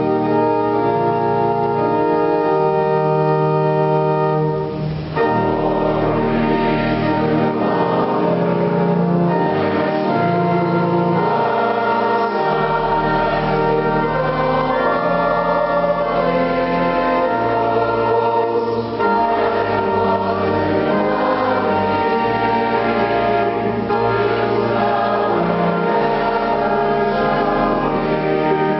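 Pipe or electronic church organ playing held chords, joined about five seconds in by a group of voices singing a hymn with the organ accompanying.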